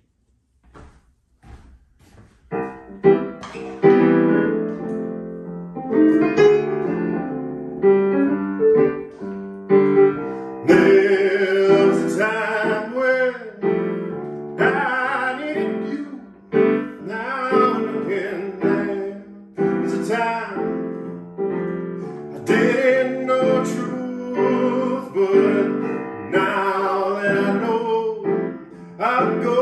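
Old electric piano playing a song's chords and melody. It begins after a couple of seconds of near silence with a few faint clicks, and a man's voice sings along over it for much of the song.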